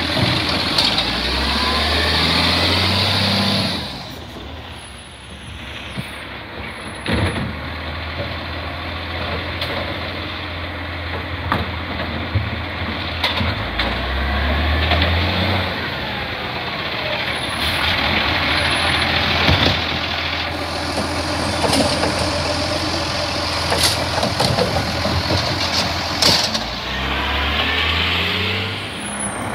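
Side-loading recycling garbage truck working a street of bins. Its diesel engine revs up three times, at the start, about halfway and near the end, and its air brakes let out several sharp hisses in between.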